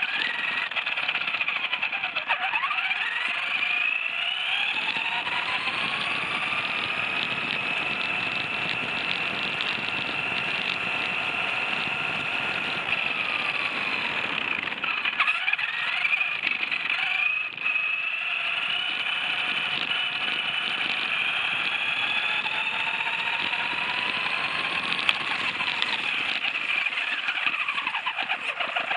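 Radio-controlled buggy driving over gravel, its drivetrain whining in smooth glides that rise and fall in pitch as it speeds up and slows down, over a steady high tone and the rough crunch of gravel under the tyres.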